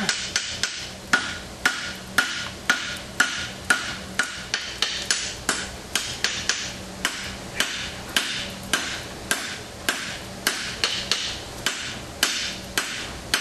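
Hand hammer striking red-hot steel on an anvil in a steady rhythm of about two blows a second, each with a short bright ring: forging a pair of tongs, thinning away excess material at the base of the jaw.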